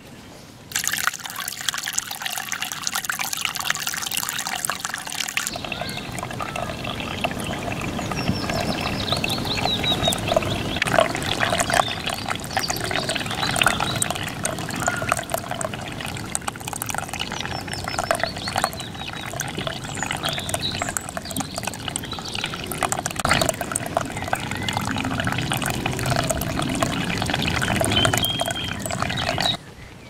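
Shallow stream water running, trickling and gurgling over mossy stones and dead leaves. It starts abruptly about a second in as a bright hiss, turns fuller and lower at about five seconds, and cuts off just before the end.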